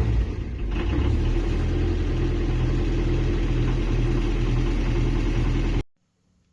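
An engine running steadily with a low rumble, which cuts off abruptly about six seconds in.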